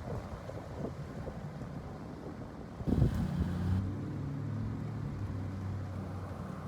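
Wind buffeting the microphone in low rumbling gusts, with a stronger gust about three seconds in. After it comes a steady low motor hum.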